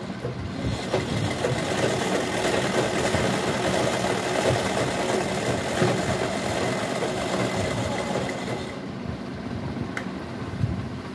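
Merritt sewing machine running steadily as it stitches a seam through cotton fabric, its fast needle-and-feed clatter easing off near the end. A single sharp click comes about ten seconds in.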